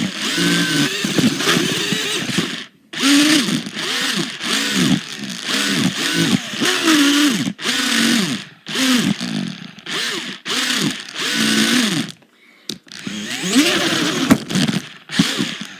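Small electric motor and gears of a toy RC monster truck whirring in repeated bursts, the pitch rising and falling with each pull of the throttle. There are two short pauses.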